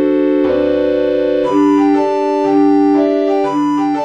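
Computer playback of a score for recorder ensemble in digital, organ-like recorder voices. A chord is held for about a second and a half, then shorter detached notes follow over a steady lower part.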